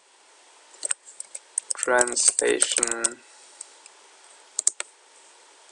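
Computer keyboard typing: scattered single keystroke clicks, a few of them about a second in, more around the middle, and a final couple about four and a half seconds in.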